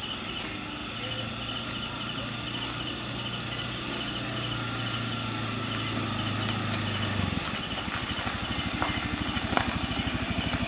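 Small motor scooter engine running as it approaches, its steady hum growing louder, then changing at about seven seconds to a rapid low putter as it slows and pulls up close. Insects chirp steadily in the background.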